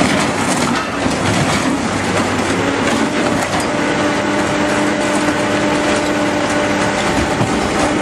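Excavator crushing a car body with its demolition arm: sheet metal crunching and creaking over the running machine, with a steady hydraulic whine from about a third of the way in.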